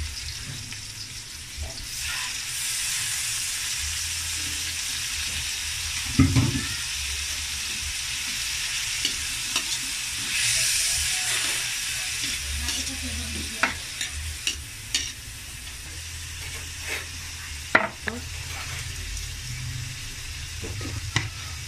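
Ground pork frying in hot oil in a metal wok: a steady sizzle that grows louder about two seconds in. A metal spatula scrapes and clinks against the wok several times as the meat is stirred.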